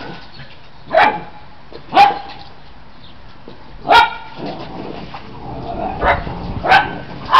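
Australian Shepherd puppies barking in play: about five short, sharp barks spaced a second or two apart, with fainter yips between them.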